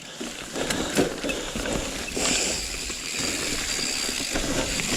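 Rocky Mountain Slayer mountain bike descending a rough dirt trail: tyres rolling over dirt and rocks, with the chain and frame rattling. A few sharp knocks come in the first second or so, and a steadier rushing hiss sets in about two seconds in.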